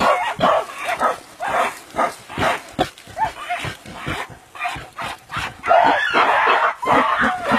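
Gorillas calling during a fight: a fast run of short barks and grunts, with a louder, rougher cry about six seconds in.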